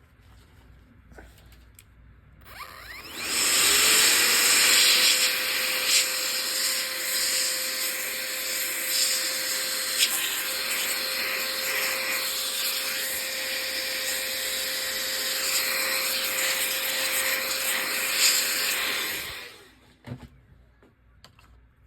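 A small electric motor spins up about three seconds in to a steady hum with a loud rushing hiss, runs evenly for about sixteen seconds, then winds down and stops.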